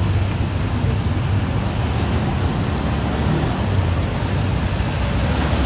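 Steady low rumble of street traffic heard from a moving bicycle, with a van running just ahead; no single event stands out.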